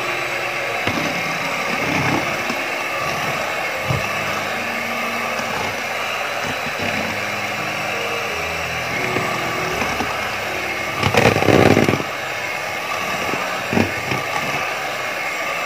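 Electric hand mixer running steadily, its beaters whisking eggs and powdered sugar into cake batter in a plastic bowl. It gets briefly louder for about a second near the two-thirds mark.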